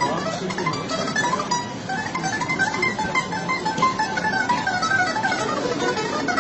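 Instrumental music led by a quick melody of plucked-string notes.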